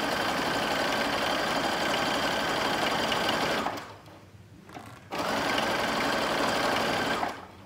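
Computerised home sewing machine running at a steady speed, sewing a triple-step zigzag topstitch; it stops after about three and a half seconds, then after a short pause it runs again for about two more seconds.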